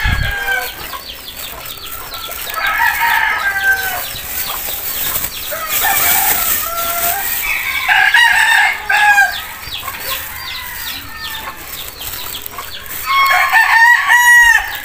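Backyard chickens: roosters crowing three times, about five seconds apart, over constant clucking and chirping from the flock.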